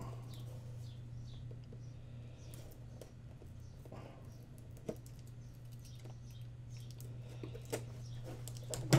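Faint handling noise of a mouse's retail box being opened: scattered light clicks, scrapes and rustles of cardboard and plastic packaging, with a sharper tap about five seconds in and another near the end, over a steady low hum.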